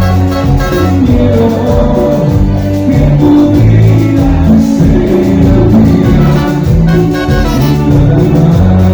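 Loud Latin-style band music with a strong bass line and horns, playing without a break.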